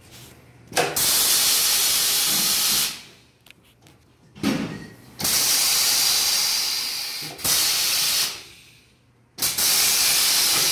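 Compressed air hissing at a tyre-changing machine, in four loud bursts of one to two seconds each that start abruptly, with a sharp click partway through the third.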